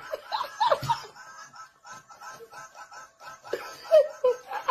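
Small electronic chirping cat toy ball making a quick run of short, evenly spaced bird-like chirps, about four a second, with brief pitched vocal sounds near the start and again near the end.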